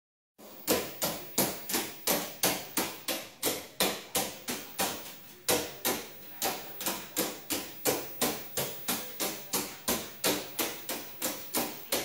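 Caique parrot hopping, each landing a sharp tap, in a steady run of about three a second with a short pause about five seconds in.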